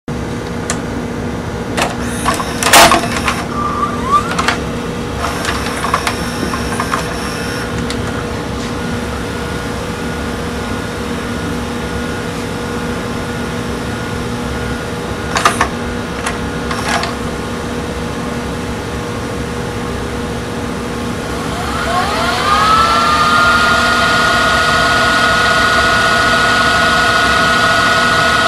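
LG V194H DVD/VCR combo's VHS tape mechanism with a steady hum underneath. In the first several seconds a cassette is loaded with clicks and clunks, and more mechanism clicks come about halfway through. About three-quarters of the way in, the reel motor spins up with a rising whine that levels off into a steady whine as a T-120 VHS tape is wound at high speed.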